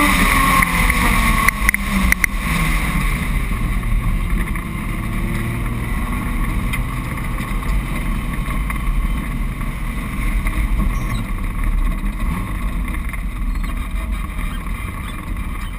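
Autocross car's engine heard from on board: the revs fall away over the first couple of seconds as the car slows past the last cones, with a few clicks about two seconds in, then it rolls along slowly at low revs with steady road and wind noise.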